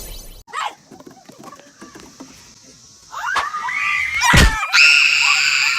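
People shrieking and yelling, with a sharp thud partway through, then a long high-pitched scream held for about a second near the end.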